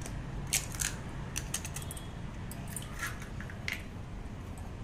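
Eggs being cracked into a glass bowl: a few scattered light clicks and taps of eggshell against the glass, over a low steady hum.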